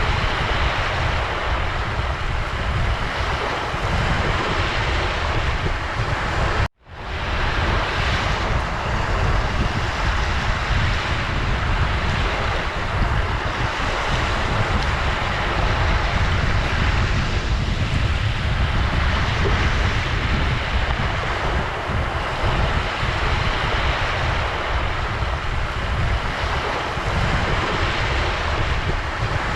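Ocean waves washing and breaking on a shore in a steady, continuous surge, with a deep low rumble. About a third of the way in the sound cuts out for an instant and fades straight back in.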